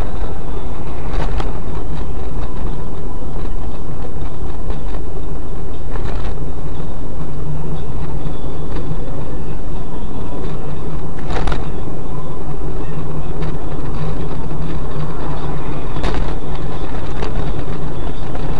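Steady drone of a car driving on the road, heard from inside the cabin through a dash cam, with a few brief knocks.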